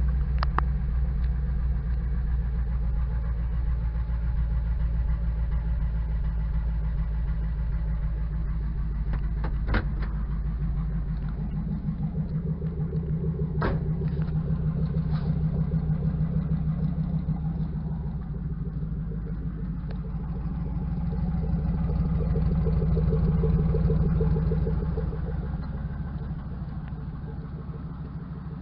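5.3-litre LS V8 in a 1972 Chevy truck idling on its own just after a cold start, throttle untouched. The deep low rumble eases about twelve seconds in, and a few sharp clicks sound over the idle.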